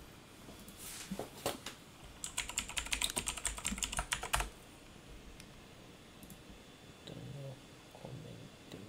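Typing on a computer keyboard: a few scattered key clicks, then a quick run of clicking keystrokes lasting about two seconds.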